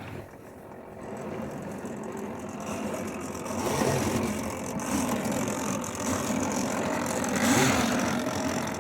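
Model train running along the track, a steady mechanical running noise that grows louder over the first few seconds and then holds.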